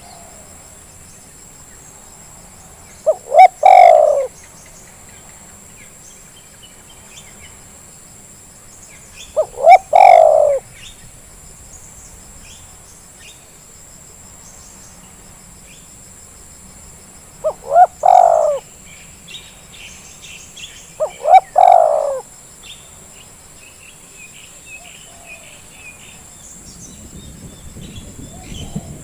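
Spotted dove cooing: four phrases several seconds apart, each of two short notes followed by a longer rolling coo. Faint chirps of small birds can be heard between the phrases.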